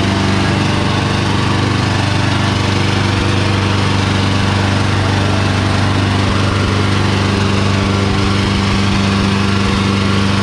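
Sonalika DI 750 III tractor's diesel engine running flat out at a steady, unchanging pitch, labouring under the drag of two disc harrows while its rear wheels spin in the dirt.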